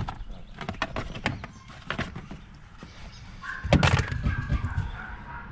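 Clicks and knocks from a Honda Civic's cabin as the newly installed gear shifter is worked by hand, with a louder clunk about two-thirds of the way through. A steady high tone starts just before the clunk and runs on to the end.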